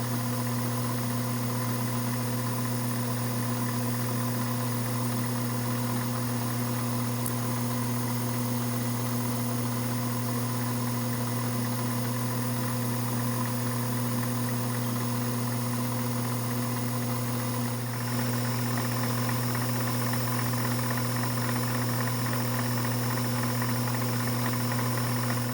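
Electric motor of a machine tool running with a steady hum, while crosshairs are scribed into a thumb screw with a centre drill point. The hum shifts slightly about two-thirds of the way through and stops abruptly at the end.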